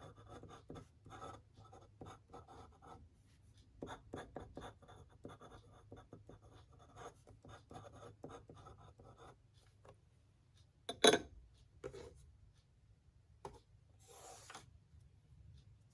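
Writing by hand on a paper ink swatch card: a quick run of short scratchy strokes for most of the first ten seconds. About eleven seconds in comes a single sharp click, the loudest sound, and near the end a brief rubbing hiss.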